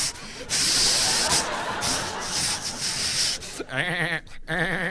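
A performer making sound effects with his voice into a microphone: a long raspy hiss, then a wavering, bleat-like warble in two short bursts near the end.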